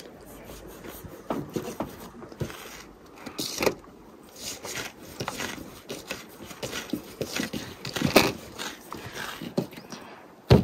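Knife cutting bread dough on an oilcloth-covered table, with soft thuds and irregular taps as the dough pieces are pressed and shaped by hand, and one sharper knock near the end.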